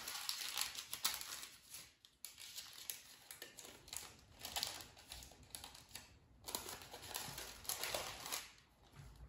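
Parchment paper crinkling and rustling against a metal loaf pan as sourdough dough is pressed and tucked into it, in short irregular bursts with light taps.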